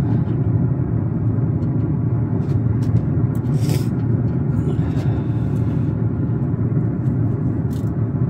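Steady low rumble throughout, with a short scraping rustle about three and a half seconds in as the roast and probe wire are handled on the metal grate.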